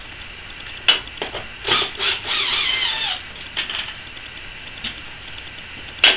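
Clicks and knocks of hand tools and metal and plastic parts being handled at a motorcycle fairing, with a short scraping squeak that slides down in pitch about two seconds in and a sharp click near the end.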